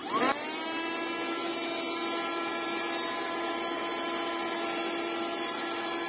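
Piranha PVC-4005 handheld car vacuum cleaner, powered from the car's cigarette lighter socket, switching on. Its small motor spins up in a quick rising whine, then runs steadily with a high whine over a rush of air.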